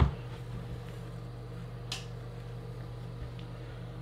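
Steady low hum of a room, with a thump at the very start and a single sharp snap about two seconds in.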